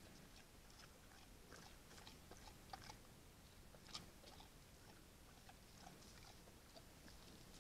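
Faint, irregular crunching and chewing of a bear feeding, with one louder crunch about four seconds in.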